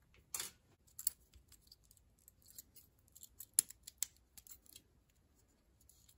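Small metal ignition parts handled by hand: a short scrape as the new contact points are picked up off the bench, then a string of light metallic clicks as they are fitted onto the breaker plate of a Ford flathead distributor.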